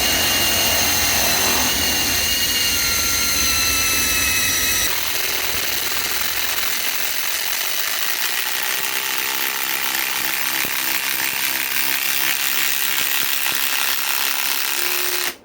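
Ryobi PSBIW25 cordless compact impact wrench driving a 5/16 by 3 inch galvanized lag screw into wood under heavy, continuous load. For about the first five seconds it runs with a high motor whine that falls slowly. Then the sound changes to a rapid rattling hammer that keeps going until the tool stops suddenly near the end.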